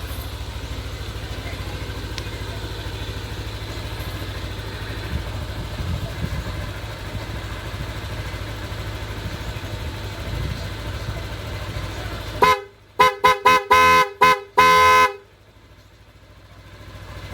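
Yamaha Aerox scooter's 155 cc single-cylinder engine idling steadily. About twelve seconds in, a newly installed aftermarket MOCC horn sounds in a quick run of about five short toots and one longer blast. The horn is loud, and after the honking the idle is no longer heard.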